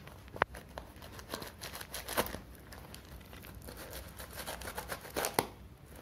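Tape-wrapped cardboard parcel being cut and torn open by hand: irregular crackling and tearing of packing tape, with sharp snaps about half a second in, around two seconds and near the end.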